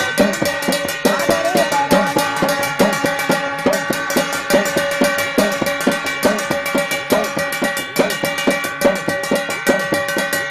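Jagar ritual drumming: a small hand drum beaten in a fast, steady rhythm, its strokes bending in pitch, over a constant metallic ringing.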